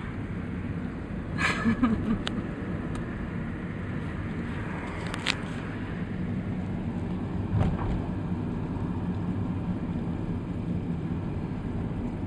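Steady low rumble of a car's engine and tyres on the road, heard from inside the moving car, with a few short sharp clicks.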